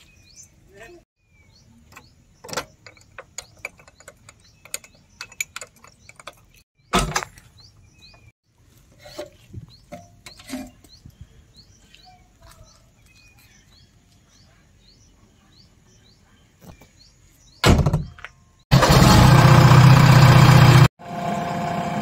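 Birds chirping with scattered knocks and clunks of someone climbing into a backhoe cab, with one loud thump about seven seconds in. Near the end the JCB 3DX backhoe loader's diesel engine runs loud for about two seconds, then settles to a steady idle.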